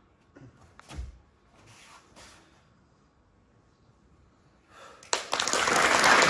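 A soft thump about a second in, then, about five seconds in, a large audience bursts into applause, loud, dense clapping that carries on.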